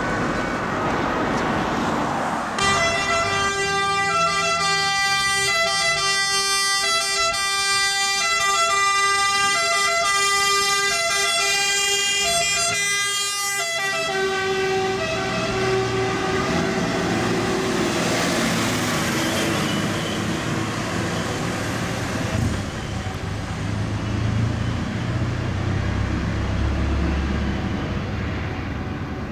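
Two-tone emergency sirens of a fire brigade aerial ladder truck and rescue van, loud and alternating steadily while the ladder truck approaches and passes about halfway through. After that the sirens fade under truck engine and road noise as the vehicles pull away.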